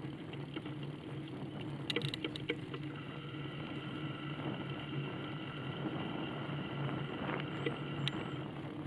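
Steady low motor hum and rattling from the small vehicle carrying the camera as it rolls along a tarmac path. A cluster of rattles comes about two seconds in, and a high steady whine runs through the middle for about five seconds.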